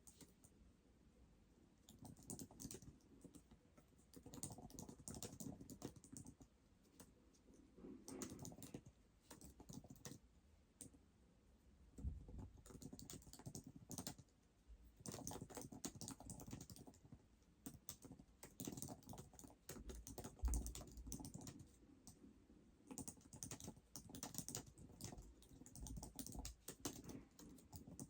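Typing on a Surface Pro 11 keyboard: runs of quick, light key clicks lasting a few seconds each, with short pauses between, and a low thump now and then.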